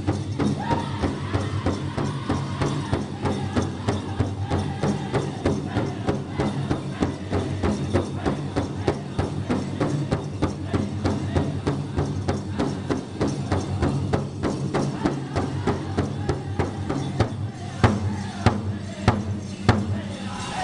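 Pow wow drum group striking a large shared drum in a steady, even beat, with singers' voices over it. A few harder strikes stand out near the end.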